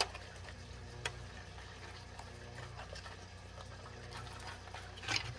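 Quiet hand handling of a fishing lure's plastic packaging: a faint click about a second in and soft rustling picking up near the end, over a steady low hum.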